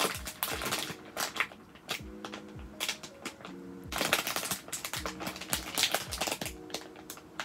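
Clear plastic squishy packaging crinkling and crackling as hands squeeze and turn the bagged squishy. It comes in two spells, the first in the opening second and a half and the second from about four to six and a half seconds in. Soft background music plays underneath.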